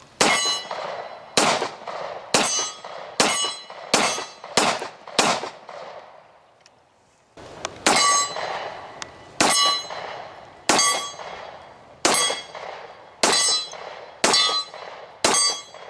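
Custom straight-blowback 10mm Hi-Point pistol fired in two strings, about seven quick shots, a pause of about two seconds, then about seven more at a steadier pace. Each shot is followed by a ringing clang, typical of rounds striking steel targets.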